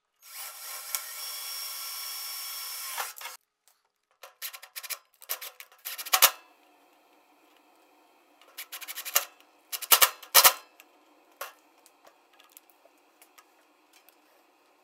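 A cordless drill runs steadily for about three seconds. After it come a series of sharp clicks and knocks from small metal hardware and a cable plug being handled, and the loudest knocks come about ten seconds in.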